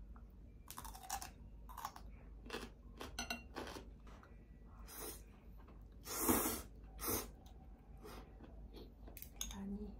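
Eating ramyeon: metal chopsticks and spoon clicking against bowls and the pot, with short rubbing, chewing and breathy mouth noises, the loudest a half-second rush of breath or slurp about six seconds in.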